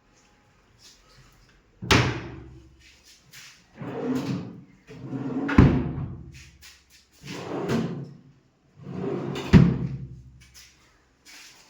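Three heavy booming hits about four seconds apart, each led by a swelling whoosh, with further whooshes between them.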